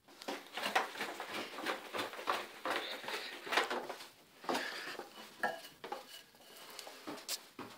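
Irregular clattering and clinking of hard objects being handled, several sharp knocks a second, starting abruptly.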